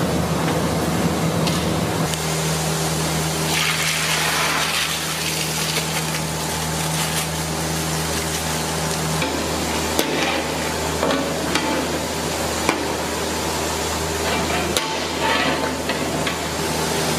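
Cashew nuts frying in hot oil in a large iron kadai, sizzling as they are poured in and stirred with a slotted metal ladle, with a few sharp clicks of the ladle against the pan. A steady low hum runs underneath.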